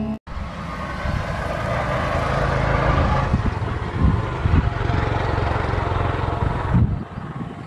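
Express passenger train running past, a steady rumble of wheels on rail that builds over the first few seconds. A few heavy thumps come through the rumble, and the sound cuts off suddenly near the end.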